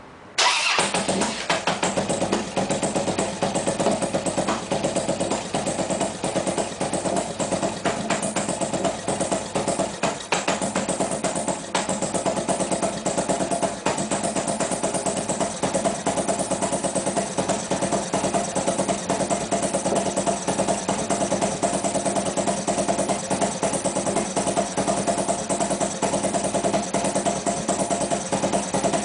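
Harley-Davidson V-twin engine firing up about half a second in, then idling with a steady pulsing beat as it warms up, on a new setup that has been hard to start.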